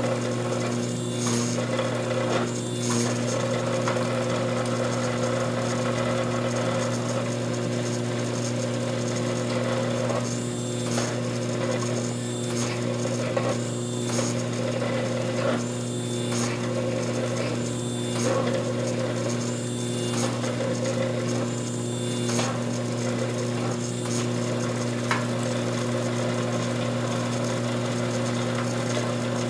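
Hydraulic forging press squeezing a red-hot wootz steel ingot, its pump motor running with a steady hum. Short knocks and scraping sounds recur every second or two as the dies bear down and the tongs shift the hot steel.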